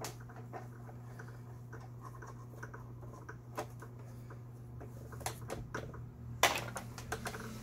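Light clicks and ticks of a screwdriver working in a home sewing machine's upper-thread tension unit, over a steady low hum. About six seconds in comes a louder stretch of scraping and clicking as the plastic machine body is handled and turned on the bench.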